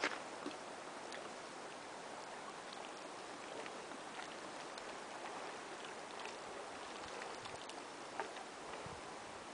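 Small waves lapping among the rocks at a lake's edge: a faint, even wash with scattered light ticks and splashes, and a sharp click right at the start.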